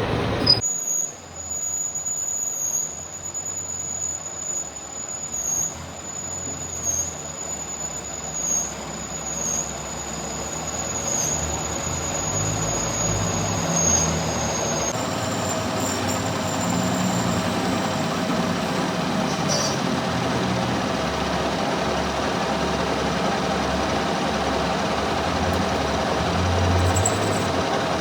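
Metalworking machine running, with a thin high-pitched whine that dips about once a second; the sound changes abruptly about halfway to a steadier, fuller machine noise.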